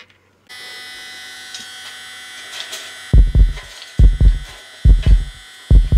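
Electric nail drill starts up about half a second in and runs with a steady high whine. From about three seconds in, a loud, deep heartbeat sound effect comes in over it, double thumps about once a second.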